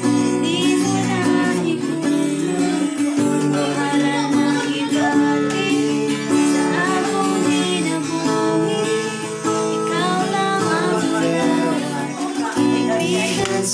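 Acoustic guitar strummed in steady chords, accompanying a woman singing.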